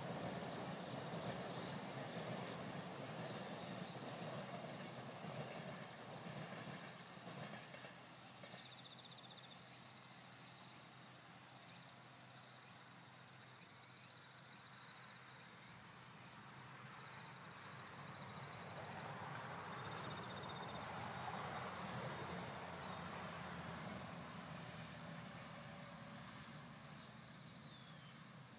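Faint outdoor ambience: insects chirring in a pulsing high trill that breaks off and starts again. Underneath is a soft rushing background that swells about two-thirds of the way through.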